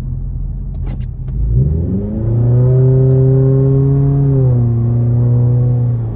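Car engine accelerating: two short clicks about a second in, then the engine note rises, holds steady, steps down slightly a little past four seconds and falls away near the end.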